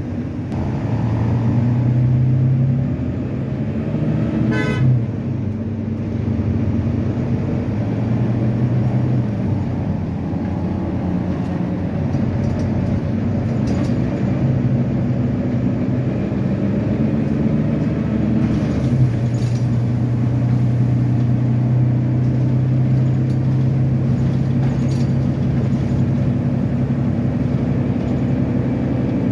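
Volvo B9TL double-deck bus's six-cylinder diesel engine running steadily, its note shifting a few times, with a short high toot about five seconds in.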